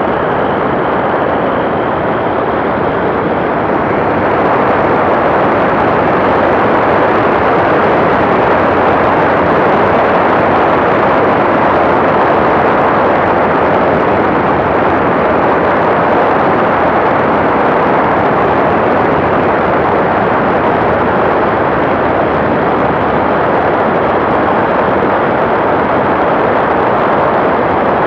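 Steady, loud mix of engine and wind noise from the TrueLite ultralight aircraft, getting a little louder about four seconds in.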